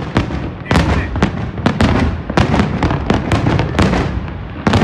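New Year fireworks exploding in rapid succession, a dense barrage of bangs and crackling with many overlapping shots.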